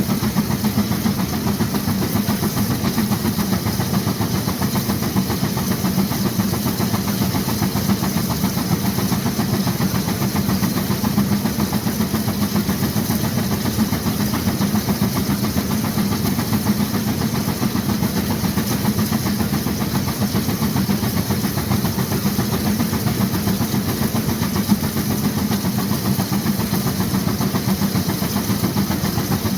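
1916 Case 40 HP steam traction engine working under load on a Baker fan, its exhaust running in a steady, fast, unbroken beat.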